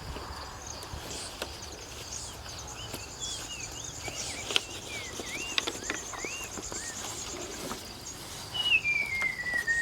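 Woodland ambience: a steady high, fast-pulsing insect trill, with birds calling in short rising-and-falling whistled notes. Near the end, a long whistle slides slowly down in pitch.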